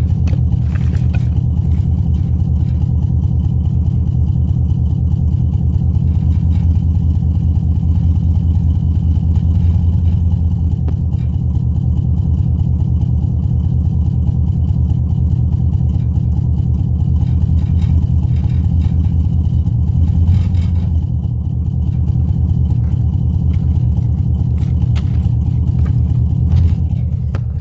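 A Chevy's engine idling with a steady low rumble, swelling slightly a few times.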